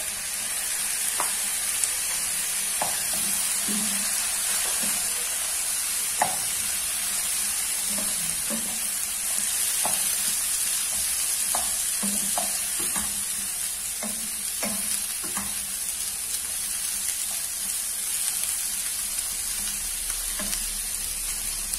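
Broccoli, carrots and onions sizzling in hot oil in a frying pan just after the broccoli goes in, with a steady hiss. They are stirred with a spatula that scrapes and knocks against the pan every second or so.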